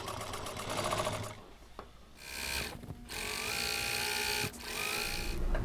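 Juki industrial sewing machine stitching fabric around welt cording with a cording foot, running fast in several spells with short pauses between them.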